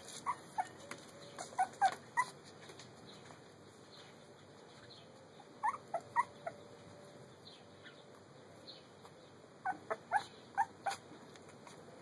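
A three-week-old puppy whimpering: short, high squeaks in four groups of a few squeaks each, with quiet gaps between the groups.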